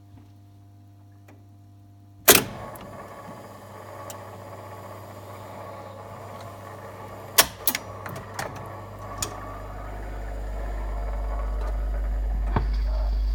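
Wurlitzer 750E jukebox record-changing mechanism cycling. It starts with a loud clunk about two seconds in, then runs with mechanical clatter and several sharp clicks as the mechanism moves a record into place. A low rumble grows steadily louder over the last few seconds.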